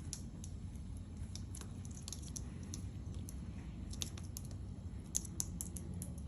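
Cockatiels pecking and crunching lettuce leaves with their beaks: irregular, crisp little clicks that come thicker in the second half, over a low steady rumble.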